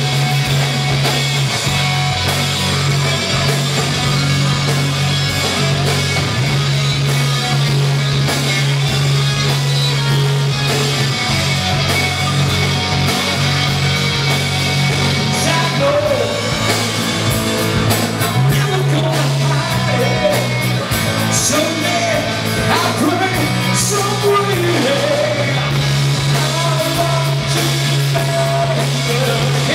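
Live rock band playing: two electric guitars, bass guitar and drum kit. A male lead vocal comes in about halfway through.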